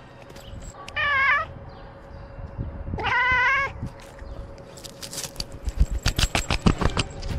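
A cat meowing twice, each call about half a second long with a wavering pitch. Then, from about five seconds in, dry fallen leaves crackling and rustling in quick sharp clicks as the cat scratches and paws at them.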